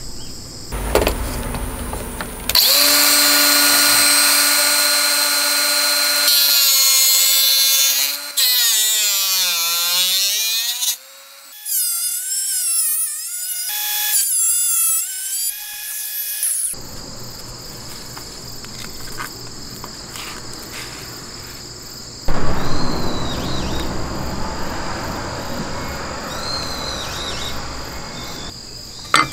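Makita cordless angle grinder running at speed, its whine sagging and recovering as the disc bites into a thin iron strip, in several runs that stop a little past halfway. A rougher, noisier grinding sound follows near the end.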